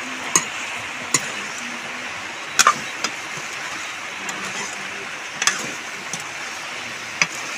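Steel ladle clinking and scraping against a steel kadhai as a wild-potato curry is stirred, about half a dozen sharp clinks at irregular intervals over a steady hiss from the pan.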